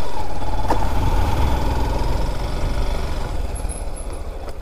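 A motor vehicle engine idling: a steady deep rumble, with a thin steady whine over it that fades out about halfway through.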